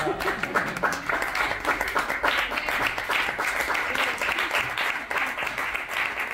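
A small audience applauding: many hands clapping steadily and densely.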